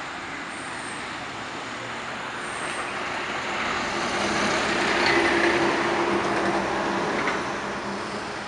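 Peterbilt truck hauling a roll-off container driving past close by, its diesel engine and tyres building to the loudest point about five seconds in and then fading. Passing car traffic runs underneath.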